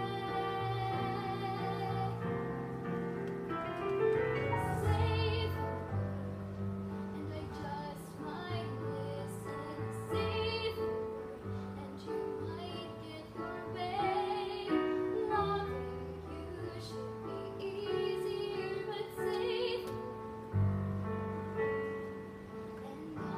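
A girl singing a solo song with vibrato over an instrumental backing track played through a small portable speaker.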